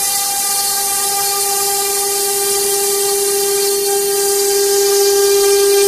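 ATC CNC wood router's spindle running with a steady high whine while its bit cuts a board, over a broad hiss of cutting, growing slightly louder near the end.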